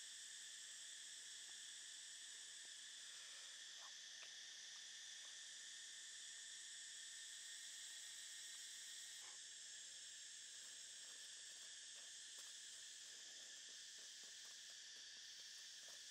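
Faint, steady high-pitched chorus of insects in the forest, with a few soft ticks scattered through it.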